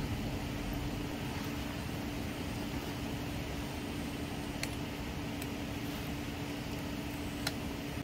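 A steady mechanical hum holding one constant low tone over a background hiss, with a few faint clicks a little past halfway and near the end.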